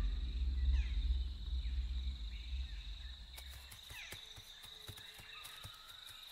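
Nature sound bed: a steady high-pitched insect trill with a few short chirps and scattered clicks, over a low rumble that fades away over the first three seconds.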